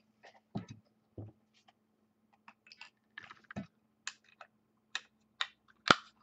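A trading card being handled and fitted into a clear plastic magnetic one-touch card holder: scattered light clicks and brief rustles, with a sharp snap near the end as the holder closes. A faint steady hum runs underneath.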